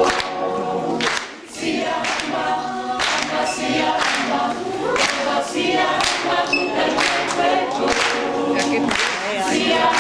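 A small group of women singing together a cappella, without instruments, with a short break between phrases about a second in.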